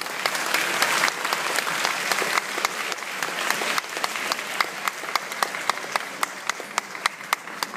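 Audience applauding: a dense spread of many hands clapping that is fullest in the first couple of seconds, then thins out to sharp, separate claps near the end.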